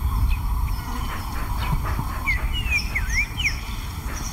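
Birds chirping: a cluster of short, quick sweeping whistles in the middle, over a steady low rumble of bush ambience.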